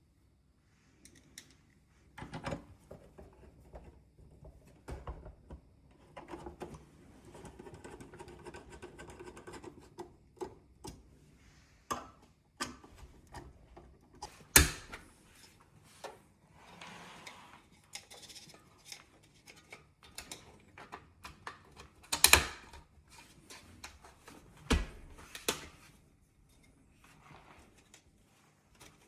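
Scattered clicks, knocks and rustling of a large flat-screen TV being handled and hooked onto a full-motion wall mount. Three sharper knocks stand out, about fifteen, twenty-two and twenty-five seconds in.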